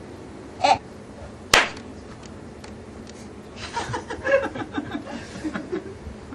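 Short baby-like vocal sounds: one brief cry under a second in, a sharp click about a second and a half in, then a run of soft, broken chuckling and babbling sounds in the middle.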